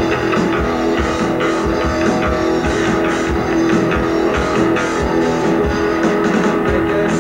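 Live rock band playing an instrumental passage: electric guitar over bass and a drum kit, with steady drum hits and no vocals.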